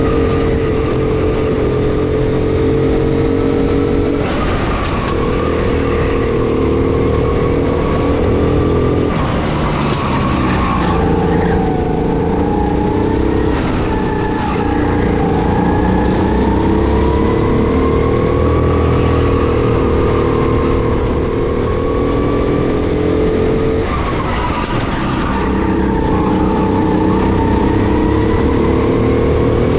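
Kart engine running hard, heard onboard close to the driver. Its pitch drops briefly as it slows for corners, about 4, 9 and 24 seconds in, and climbs again as it accelerates.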